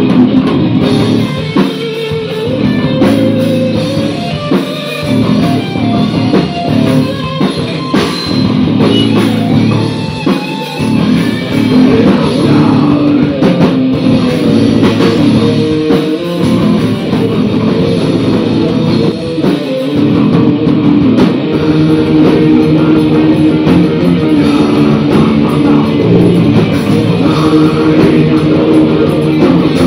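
Heavy metal band playing live at full volume: distorted electric guitars, bass guitar and a drum kit, with vocals. The playing grows louder and fuller about two-thirds of the way in.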